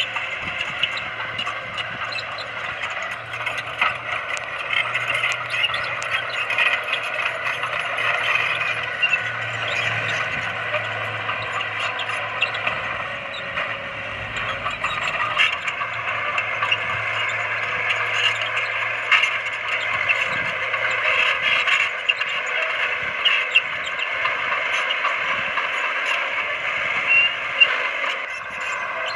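Komatsu D20P small crawler bulldozer at work: its engine runs steadily under a dense metallic clatter with short high squeaks from the tracks. The low engine hum fades about three-quarters of the way through, while the clatter goes on.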